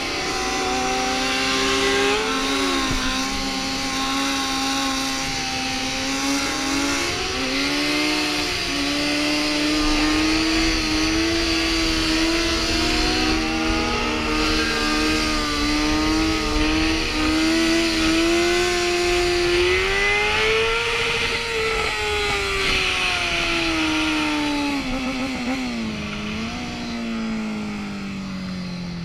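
Motorcycle engine held at fairly steady revs while the bike is ridden on its back wheel. The note climbs a little about two-thirds of the way through, then sinks gradually toward the end.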